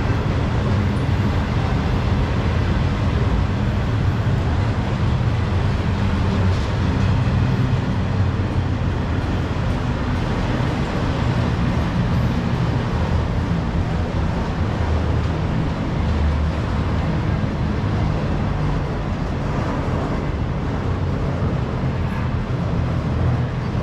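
Freight train of autorack cars rolling slowly past: a steady, loud rumble of steel wheels on the rails.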